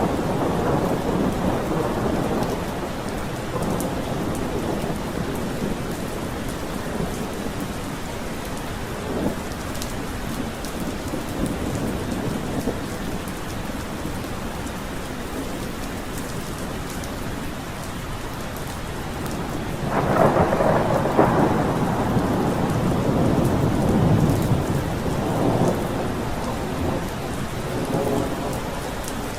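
Thunderstorm: steady rain with rolling thunder. A rumble dies away over the first few seconds; about two-thirds of the way through, a new peal starts suddenly and rolls on for several seconds.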